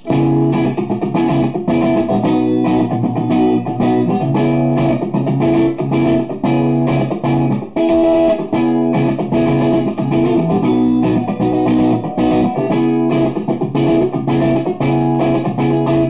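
Electric guitar: a Gibson Les Paul '57 reissue goldtop on its neck humbucker, played loud through an amplifier in a busy picked passage of quick notes and chords. It stops abruptly at the end.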